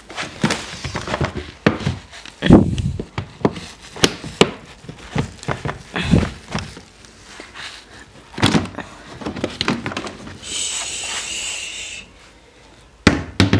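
Plastic hooded cat litter box being handled: a string of clicks and knocks as the hood is unclipped and lifted off the base, the loudest a thump about two and a half seconds in. Later comes a steady hiss lasting about a second and a half.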